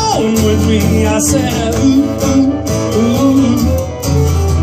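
Live acoustic band playing a country-style song: strummed acoustic guitars with a drum beat and a sung melody over a steady bass.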